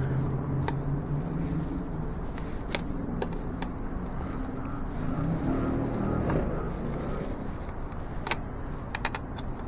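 Sharp clicks and taps of tire levers against a bicycle wheel rim as an inner tube is pushed under the tire bead, several coming close together near the end, over a steady low hum.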